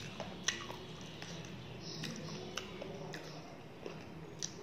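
Eating by hand: fingers working rice and curry on a steel plate, then chewing with sharp, wet mouth clicks, about five in all.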